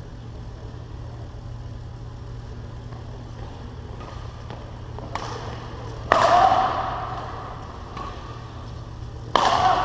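Badminton doubles rally: rackets hitting the shuttlecock as faint sharp ticks, then two loud sudden sounds with a short ringing tail, about six seconds in and near the end, over a steady low hum.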